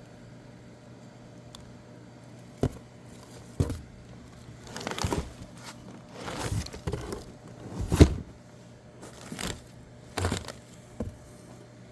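Irregular knocks and clicks with short bursts of rustling, the loudest knock about eight seconds in, over a steady low hum.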